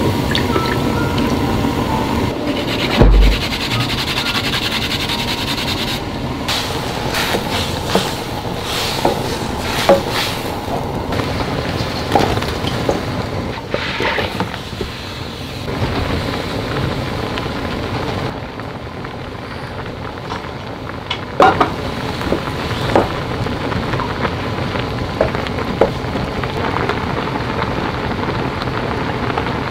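Cooking in a frying pan: liquid seasonings poured into the hot pan and broth simmering and bubbling, with scattered clicks and knocks of bottles and utensils. Chopped broccoli and zucchini are tipped into the pan about halfway through.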